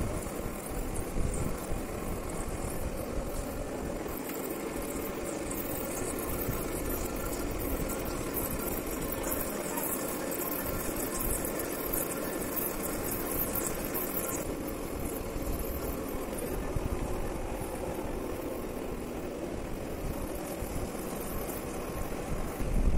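Heavy-duty metal lathe running steadily while its cutting tool faces a large metal gear blank under flowing coolant. The high hiss thins out about halfway through.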